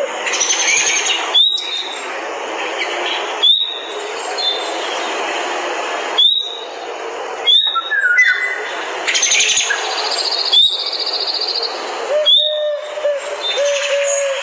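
Forest birds calling: short, sharp rising chirps every second or two over a steady hiss, and near the end a second bird repeating a lower whistled note.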